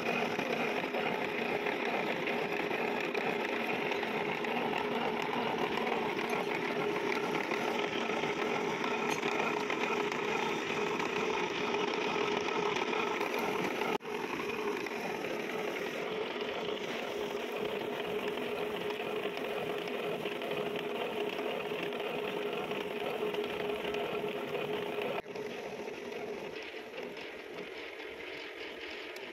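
Disc-type milling cutter on a lathe cutting the thread of a two-start steel worm shaft, running as a steady machining noise with a constant hum. The sound changes abruptly about 14 seconds in and again about 25 seconds in, then grows quieter near the end.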